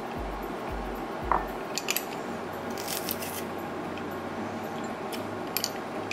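Metal garlic press crushing peeled garlic cloves: a few short metallic clicks and squishes as the handles are squeezed, over soft background music.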